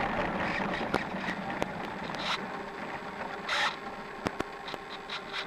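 Durafly Tundra RC plane with its electric motor throttled back: a steady hiss of rushing air, broken by scattered sharp clicks and two short bursts of noise, without the motor's whine.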